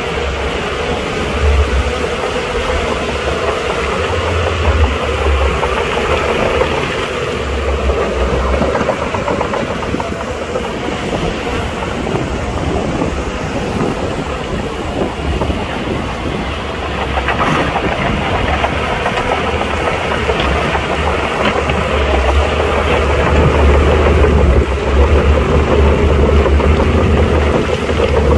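Crawler bulldozer at work: its diesel engine running under load with the clatter of its steel tracks, growing louder near the end.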